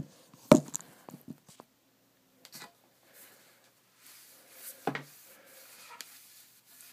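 A sanded hockey stick shaft being wiped down with a wet towel: soft rubbing and handling noise. There is a sharp knock about half a second in and another near five seconds.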